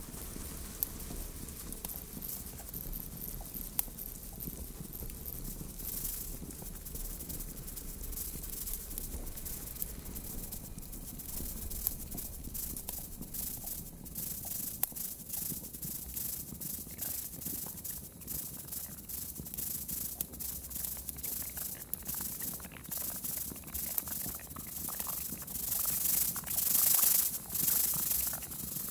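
Experimental live electronic music: crackling, rasping noise textures over a low hum, with a few sharp clicks, swelling into loud hissing near the end.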